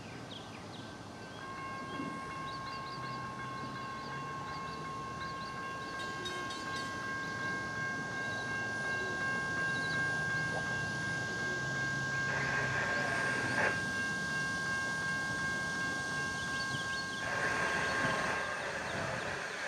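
Diesel freight locomotive's multi-chime air horn held in one long steady chord, over the low rumble of the diesel engines. Two louder, rougher stretches come a little past the middle and near the end.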